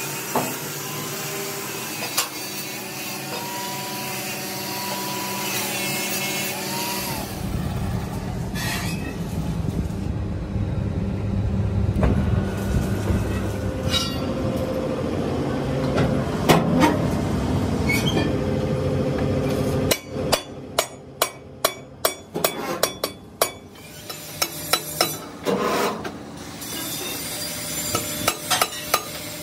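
A lathe turning a steel wheel rim while the cutting tool scrapes and grinds the metal, with a wavering squeal. Then a heavier, rumbling stretch with a few loud clanks of steel rims being handled. About two-thirds of the way through comes a quick run of sharp metal knocks, with a few more near the end.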